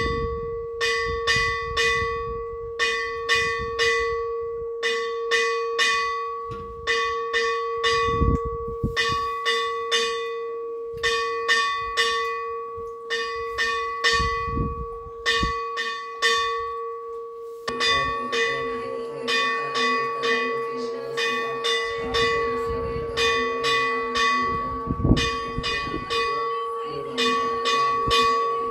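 Temple bell rung steadily during worship: quick clusters of strikes about once a second over a sustained ringing tone. About two-thirds of the way through, a denser, lower ringing joins in.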